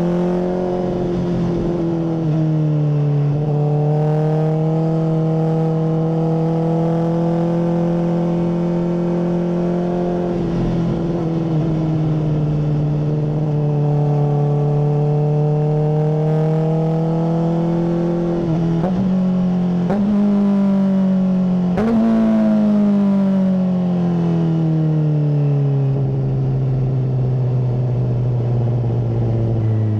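Honda CBR600RR inline-four engine through a MIVV full exhaust, ridden at steady mid revs. It drops to a lower note a few seconds in after an upshift, climbs gently, then jumps up twice in quick downshift blips about two-thirds of the way through, and the revs fall steadily as the bike slows.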